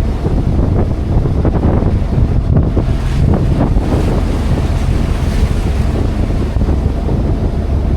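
Wind buffeting the microphone over the wash of waves and water rushing past a small sailing yacht's hull, with a few louder splashing rushes between about one and a half and four seconds in.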